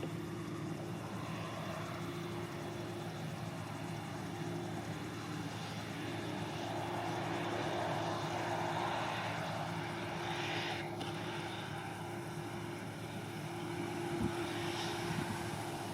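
Claas Lexion 540 C combine harvester running steadily while harvesting barley: a constant engine drone with a rushing noise on top that swells and fades.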